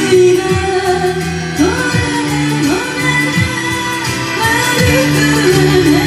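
A woman singing live into a handheld microphone over instrumental backing music, her voice gliding up into notes and holding them.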